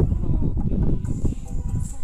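Low, irregular rumble of wind buffeting the camera microphone on an open boat, with faint background music.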